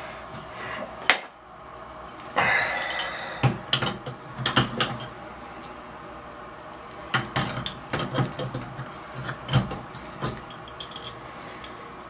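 Chrome metal trim pieces of a Moen Posi-Temp shower valve clicking, knocking and scraping as they are fitted by hand: a sharp click about a second in, a short scrape, then a run of light metallic knocks.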